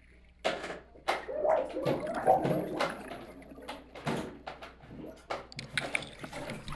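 Muffled sloshing and knocking of pool water against a camera held underwater, in irregular bursts that start about half a second in.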